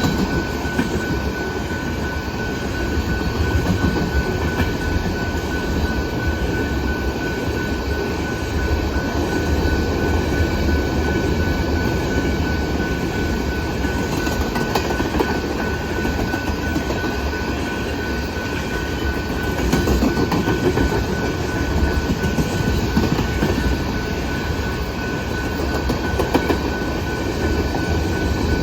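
Canadian Pacific freight train cars rolling past at a grade crossing: a steady low rumble with the clatter of wheels over the rails and a thin, steady high tone above it.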